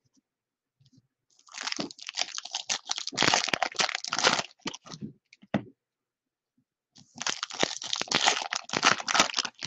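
Foil wrapper of a baseball card pack crinkling as it is torn open and handled by hand, in two bouts of crackle with a short pause and a few clicks between them.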